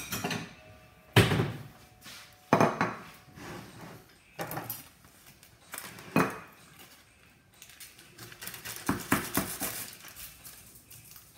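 Kitchen knife knocking and scraping on a wooden cutting board as a brownie is cut: several separate sharp knocks, then a quick run of clicks and scrapes near the end.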